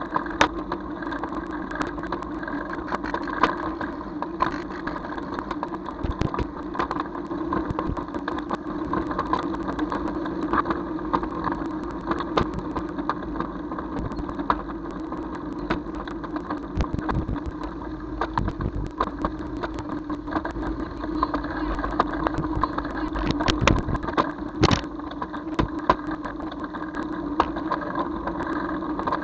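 Engine and road noise of a vehicle driving: a steady hum with frequent small clicks and rattles. A brief high squeak comes about three-quarters of the way through.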